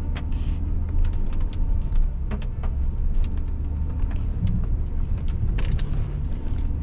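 Range Rover Autobiography driving slowly over a rough, steep dirt track: a steady low rumble with many short, sharp knocks and clicks as the tyres and body take the bumps.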